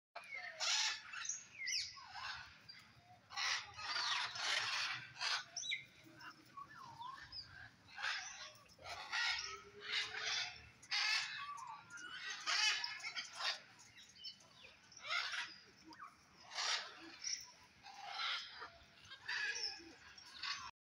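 Many small birds chirping and twittering together in repeated bursts every second or two.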